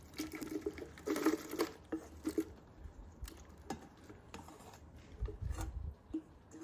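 Light patter and clicking of fried, cooled chiles de árbol being tipped into a blender jar, in a run of short irregular strokes, with a dull low knock about five seconds in.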